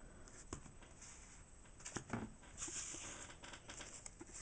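Faint rustling and a few light clicks of Pokémon trading cards and a foil booster pack being handled, with a soft rustle of the wrapper about two and a half seconds in.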